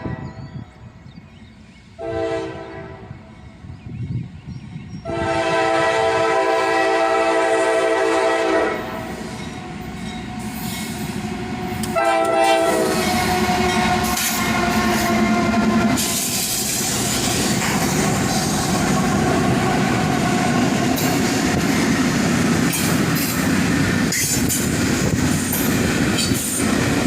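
Diesel locomotive horn giving a horn salute: three blasts, a medium one, a long one and a short one about 12 seconds in. Then the locomotives of a nine-unit lashup pass close by, with a loud steady engine rumble and wheels clattering on the rails.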